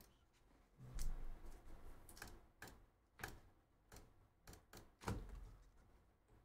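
Faint, irregular clicks and light taps, about a dozen, from trading cards being handled and set down on a tabletop.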